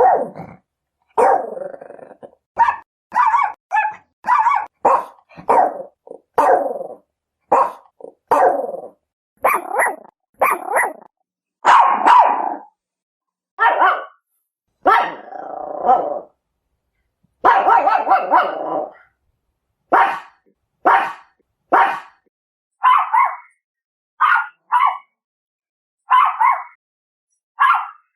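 Chihuahuas barking: a long series of sharp, high-pitched barks about one a second with silent gaps between them, a few drawn out into a rough snarl in the middle. Toward the end the barks turn shorter and higher, like yips.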